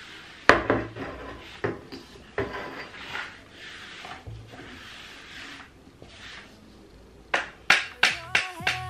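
Long gap dust cleaner pushed under appliance pedestals and dragged back along a tile floor: brushing strokes broken by sharp knocks, with a quick run of about six knocks near the end.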